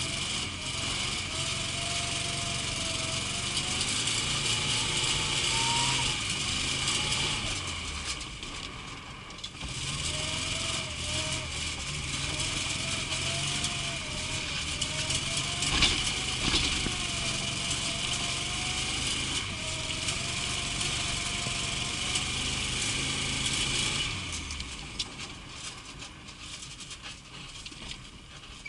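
VAZ Zhiguli car engine running, its pitch wavering up and down with the revs, then dropping away about 24 seconds in.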